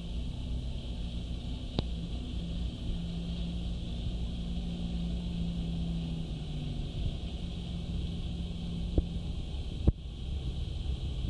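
Jet ski engines running steadily with a low hum, the lead stand-up jet ski cruising close by with others behind it. A few sharp knocks stand out, the loudest about ten seconds in.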